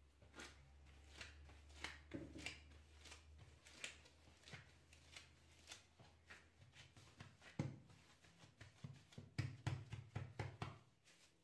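Faint handling sounds of dough work on a stone worktop: light irregular taps and rustles as flour is scattered by hand, then soft thuds of a gloved hand pressing and patting a ball of dough flat, heaviest in the last few seconds.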